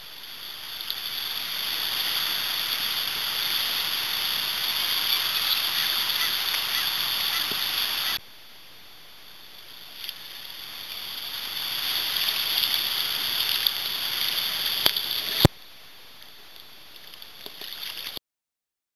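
Rushing, riffling river current, a steady noise that swells and cuts off suddenly twice, the second time with a sharp click.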